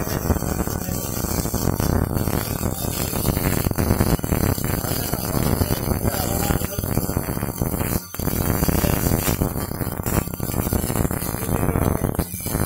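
MIG welding arc crackling and buzzing steadily as wire is fed into the weld, stopping briefly about eight seconds in and again near the end as the arc is broken and restruck.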